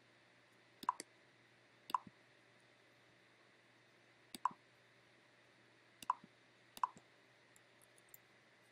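Faint, irregularly spaced clicks of a computer mouse button, five distinct ones, then a few softer ticks near the end.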